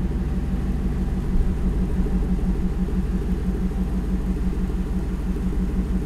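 Supercharged 5.4-litre Ford Lightning V8 in a 1958 Ford F100 panel truck idling steadily through its stainless Magnaflow exhaust: a deep, even note with no revving.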